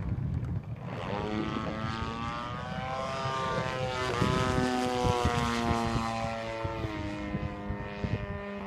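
Single-cylinder two-stroke DLE55 petrol engine of a large radio-controlled model airplane running in flight, its propeller buzz coming in about a second in, louder and higher around the middle, then dropping in pitch in steps toward the end.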